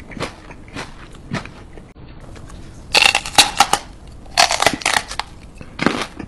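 A dog nibbling and licking at a person's chin and face close to the microphone: irregular wet clicks, smacks and crackles, coming in louder short clusters in the second half.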